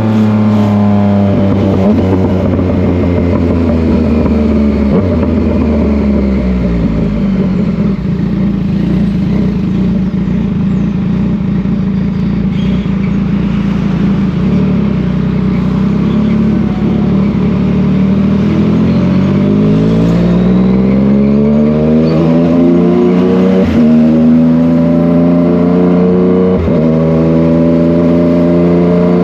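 Yamaha MT-09 inline three-cylinder engine running under way, its note falling off over the first several seconds, holding low, then climbing again about twenty seconds in and holding at the higher pitch.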